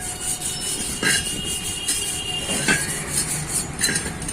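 Sandpaper rubbed back and forth over a rusty steel wheel rim, scraping off rust and dust, in repeated hissing strokes. A thin high squeal runs through the middle.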